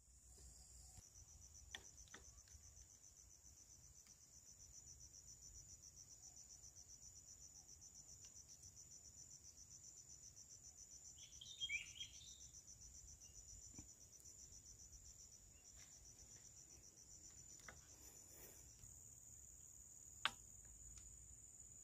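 Faint insects trilling steadily in a high pitch, a fast even pulsing that gives way to a plain steady buzz near the end. A short burst of chirping comes about twelve seconds in, and a single sharp click near the end.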